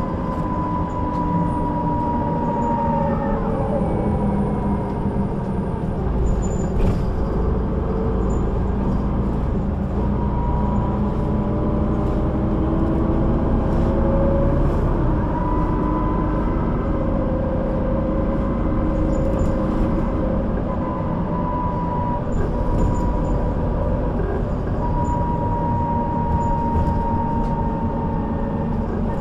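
Solaris Urbino 12 III city bus under way: its diesel engine running with the whine of its ZF automatic gearbox, the whining tones coming and going and shifting in pitch as the bus changes speed. A few brief knocks sound over it.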